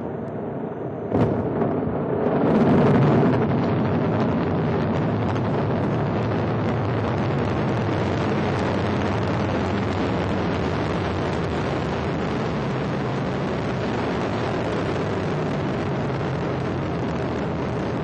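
Ariane 5 rocket at liftoff: its Vulcain main engine and two solid rocket boosters give a steady, dense roar. It starts with a sharp crack about a second in and swells to its loudest a couple of seconds later.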